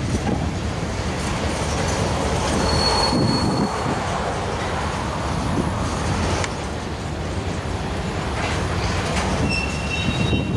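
Freight train of covered hopper cars rolling past, a steady rumble of steel wheels on the rail, with a brief high wheel squeal about three seconds in and another near the end.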